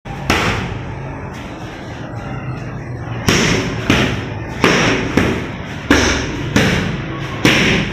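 Boxing gloves punching focus mitts: sharp smacks, each with a short room echo. One lands near the start, then after a pause of nearly three seconds comes a steady run of about seven punches, roughly one every two-thirds of a second.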